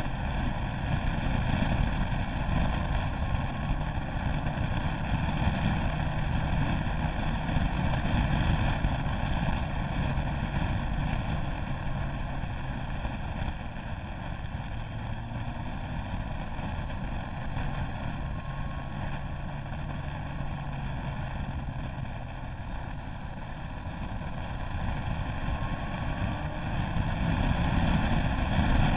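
Motorcycle riding at speed: steady rush of wind over the camera with the engine running beneath it. It eases off a little through the middle and builds again near the end.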